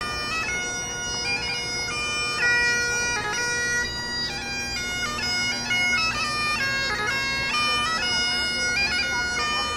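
Bagpipes playing a melody ornamented with quick grace notes over a steady drone.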